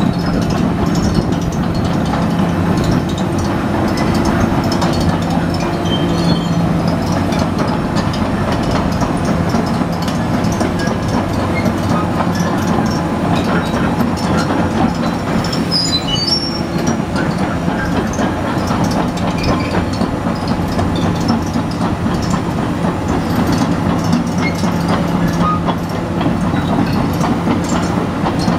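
Komatsu PC450LC crawler excavator's diesel engine running steadily with a constant low hum and mechanical clatter, with a few brief high squeaks about halfway through.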